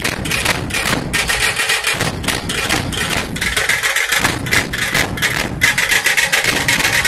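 Dhol-tasha ensemble drumming: several large barrel dhols and small tasha drums beaten together in a fast, dense, unbroken rhythm.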